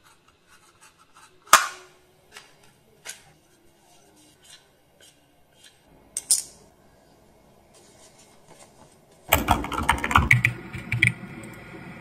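Plastic handling clicks from a mini desktop vacuum cleaner's base and battery compartment as a battery is fitted, with two sharper snaps about a second and a half in and about six seconds in. From about nine seconds in, rapid computer keyboard typing.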